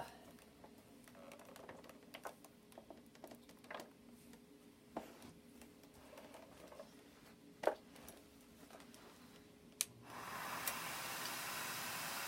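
Scattered light clicks and knocks of a vacuum hose and power nozzle being handled and plugged in, then about ten seconds in a steady rushing hiss starts: the Hoover central vacuum's suction coming on through the hose.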